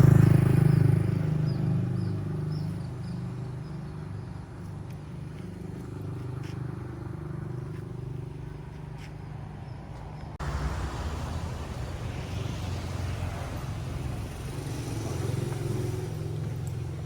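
A motor vehicle's engine running, loud at first and fading over the first few seconds. About ten seconds in the sound cuts abruptly to another steady engine drone.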